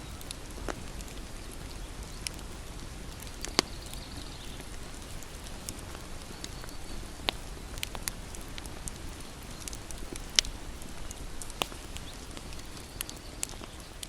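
Wood fire burning with a steady soft hiss and irregular crackles and sharp pops, two louder snaps standing out, one about a third of the way in and one later.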